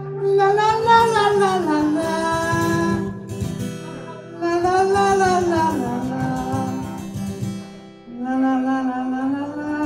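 A man singing a wordless, drawn-out cry in long wavering notes, the plaintive cry of a young girl, over strummed acoustic guitar. It comes in three phrases, each sagging in pitch at its end.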